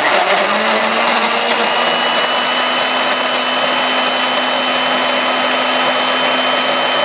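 Electric countertop jug blender running at full speed, blending milk, banana and carob syrup into a smoothie: a loud, steady whir with a steady motor whine.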